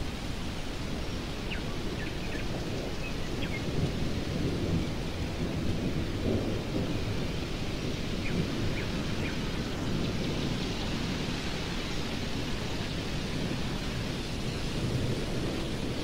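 Distant thunder rumbling low under a steady stormy wind, swelling a few times. A bird chirps faintly a few times, once in the first few seconds and again about halfway through.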